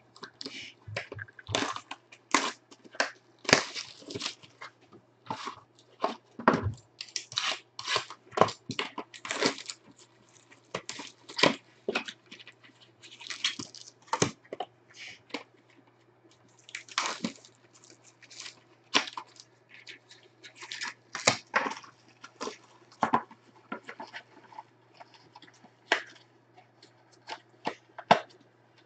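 Trading-card box and packs being torn open by hand and the cards and hard plastic card holders handled: irregular crinkling, tearing and clicks. A faint steady low hum runs underneath.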